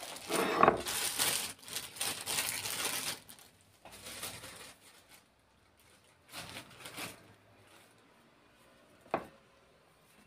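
Thin plastic bag crinkling and rustling in several bursts as a pack of wonton wrappers is unwrapped, loudest over the first three seconds, then one sharp tap about nine seconds in.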